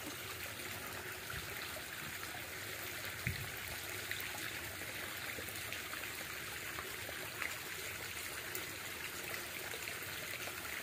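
Small stream trickling steadily, with a soft thump about three seconds in.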